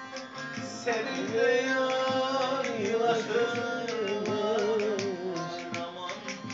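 Live bağlama (saz) strummed in a quick, steady rhythm. From about a second in until near the end, a man sings a wavering, heavily ornamented Turkish folk melody over it.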